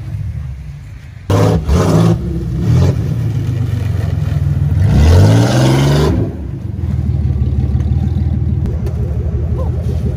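Old car's engine revved hard in short bursts, then a long climb in revs about five seconds in as the car slides through snow, then running steadily at high revs.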